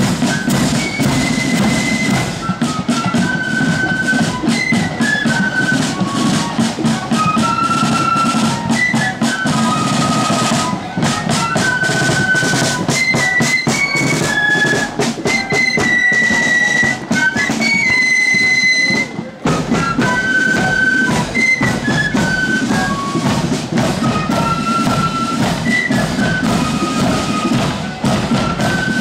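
Blood-and-thunder marching flute band playing: a shrill flute melody over steady side-drum beats, a bass drum and clashing cymbals. The music dips briefly about two-thirds of the way through, then carries on.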